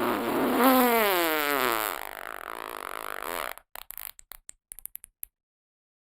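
Long fart sound effect: a buzzing tone that wavers and slides down in pitch, then breaks up into a run of short sputtering pops.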